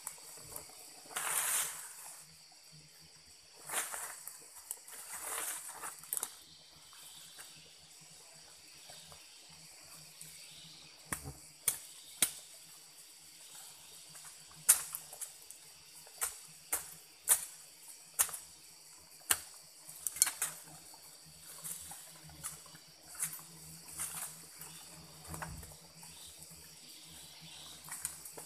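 Dry leaf litter rustling and crunching as someone moves and works on the forest floor, then a run of sharp knocks and snaps, about one a second, as a tool strikes the ground and twigs.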